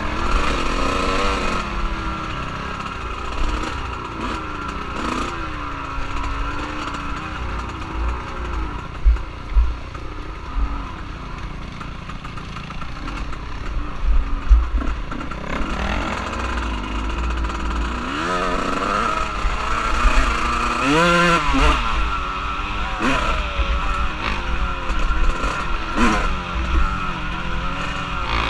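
Off-road vehicle engine revving up and down with the throttle while being ridden, its pitch climbing highest about two-thirds of the way in. Heavy low rumble and sharp thumps of wind buffeting the action-camera microphone.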